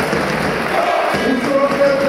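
Handball crowd in an indoor arena chanting in unison, a sung, repeated phrase over the general crowd noise.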